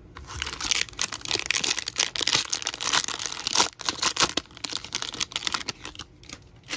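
Plastic wrapper of a baseball card pack being torn open and crinkled by hand: a dense run of crackles that dies down near the end.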